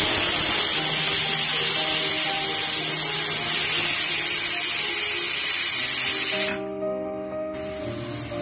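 Aluminium stovetop pressure cooker blowing steam out past its weighted whistle with a loud, high hiss, which cuts off suddenly about six and a half seconds in. The venting is the sign that the cooker has reached full pressure.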